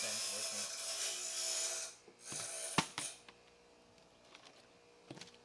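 A steady hiss with a faint hum that cuts off about two seconds in, then a few light knocks as a plastic water bottle lands on a carpeted floor and tips over, followed by small taps as it is handled.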